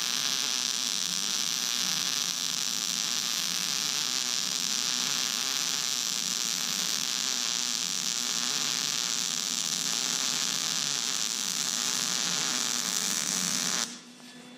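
Lincoln Weld-Pak 180HD wire-feed (MIG) welding arc running steadily as a bead is laid on 1-inch steel plate, then cutting off abruptly near the end as the arc is broken.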